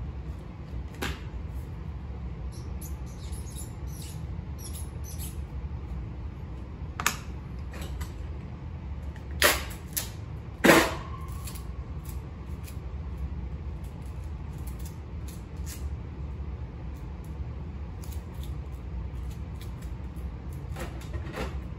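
Small clicks and knocks of boxes and a pen being handled, over a steady low hum. There are three sharper knocks near the middle; the last and loudest has a short ringing after it.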